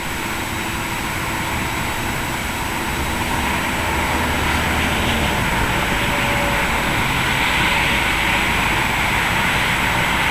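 Boeing 767 cargo jet's engines running, a steady jet engine hiss that grows gradually louder.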